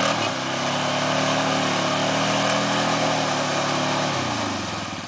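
Polaris Sportsman 500 ATV's single-cylinder four-stroke engine revved high and held steady under load as the quad sits stuck in deep mud. About four seconds in, the revs drop back toward idle.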